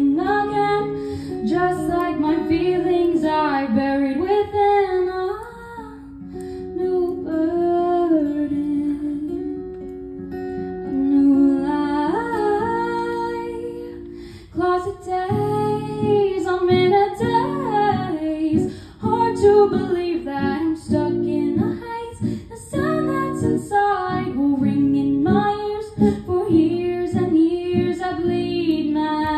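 A female vocalist singing a slow song to her own acoustic guitar, the guitar first holding chords under the voice, then strummed in a steady, busier rhythm from about halfway through.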